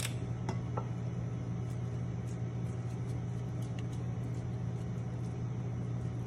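Steady low hum of kitchen equipment, with a few light clicks in the first second as a metal portion scoop knocks against a stainless steel mixing bowl.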